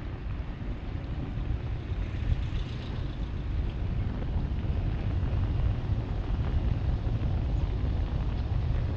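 Car driving on a paved road: a steady, gusty low rumble of wind buffeting the microphone over tyre and road noise. About two to three seconds in, a brief hiss as an oncoming vehicle passes.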